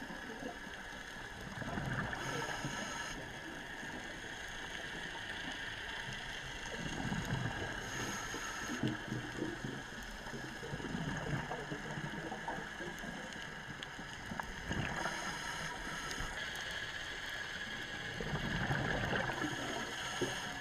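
Underwater sound of a scuba diver breathing through a regulator: a burst of exhaled bubbles gurgles up every few seconds over a steady underwater hiss.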